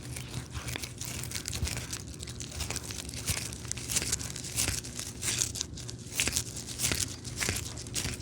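Cats chewing and biting into something crisp: a fast, irregular run of crunches and crackles with tearing sounds mixed in.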